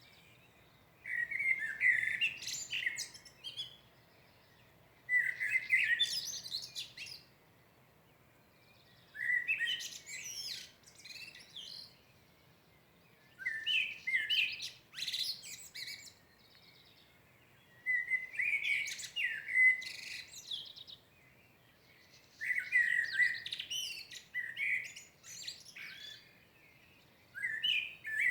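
A songbird singing at dawn: seven warbling song phrases, each about two seconds long, repeated every four seconds or so, each starting on lower notes and breaking into higher twittering.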